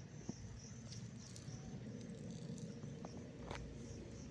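An insect chirping in a steady high pulse, about three chirps a second, over a low outdoor rumble, with a couple of faint sharp clicks.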